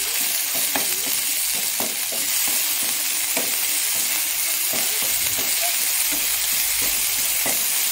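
Spices and chopped green chillies sizzling in hot oil in a non-stick frying pan, a steady hiss, with a spatula stirring and scraping through them in a few short strokes. This is the masala being fried for a potato stuffing.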